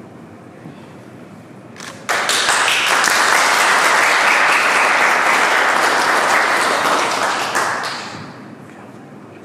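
A small crowd applauding: the clapping starts suddenly about two seconds in, holds steady, then dies away near the end.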